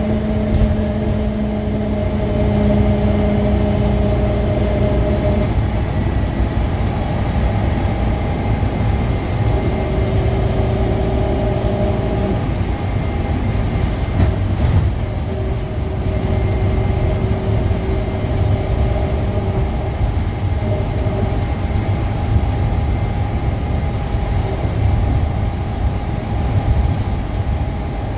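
Scania K310UA articulated bus under way, heard from inside the cabin: a steady rumble of engine and road noise, with whining tones that fade in and out several times.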